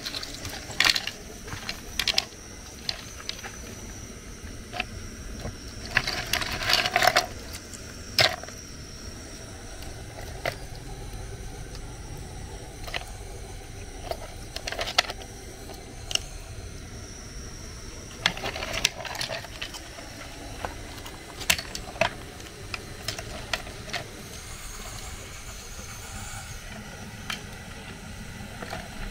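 Giant African land snail shells being cracked and broken apart by hand over a ceramic plate: irregular sharp cracks and clinks of brittle shell pieces, with two bursts of denser crunching.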